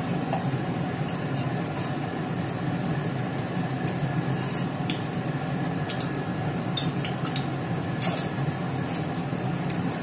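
Oil heating in a kadai on a gas stove, giving a few sharp crackles and pops over a steady low rumble.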